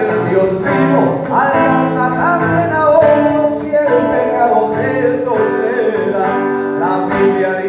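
A man singing into a microphone while strumming his acoustic guitar.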